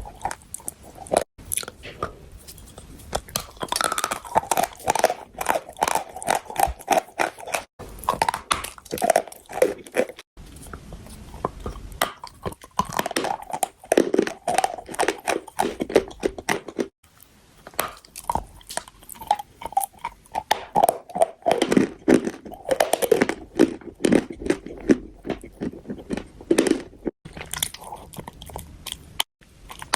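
Chalk being bitten and chewed: a long run of crisp crunches in quick succession, with a few short pauses.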